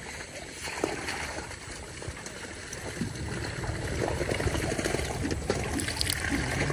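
Shallow pond water trickling and lapping, with small scattered splashes.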